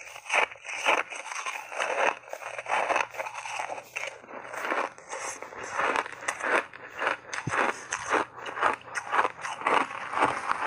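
Chewing and crunching refrozen ice chunks coated in matcha and milk powder, picked up close by clip-on microphones: a quick, irregular run of crisp crunches, several a second.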